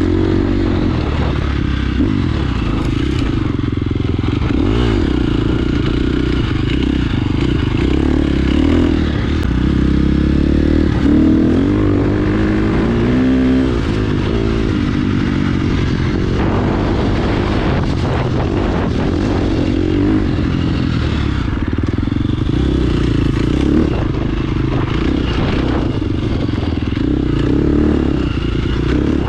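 2017 KTM 350 XC-F's single-cylinder four-stroke engine running under way, its pitch rising and falling as the throttle is worked, with a few sharper swings about ten to fourteen seconds in.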